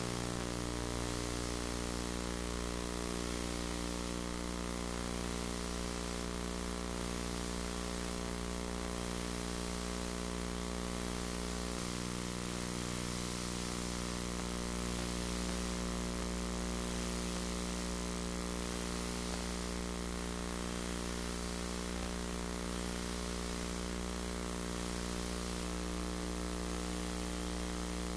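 Steady electrical hum with a buzzy stack of overtones and a hiss above it: the noise floor of a tape transfer that carries no recorded sound.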